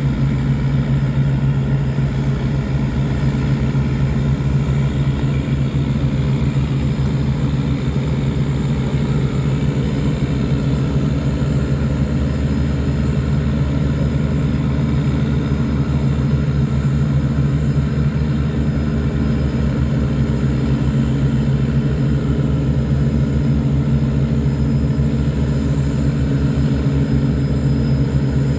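River tugboat diesel engines running steadily under heavy load, a low even drone, as they tow cargo barges upstream against a flood current.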